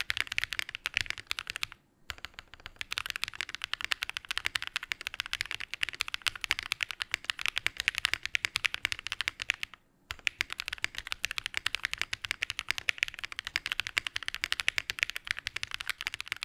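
Fast typing on an AS65 gasket-mount mechanical keyboard with an FR4 plate, lubed Aniya R2 switches and GMK Wasabi keycaps, fitted with the middle foam only. A dense run of keystroke clacks breaks off twice, briefly, about two seconds in and about ten seconds in.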